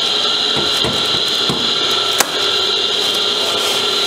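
Plastic packing sheet rustling as it is pulled off a soft-serve ice cream machine, with a few low knocks and one sharp click about two seconds in, over a steady mechanical hum.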